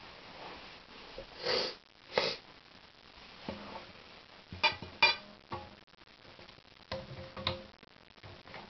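Two short breathy sniffs, then a few sharp clicks with a brief ring, typical of small parts of a die-cast scale model being handled.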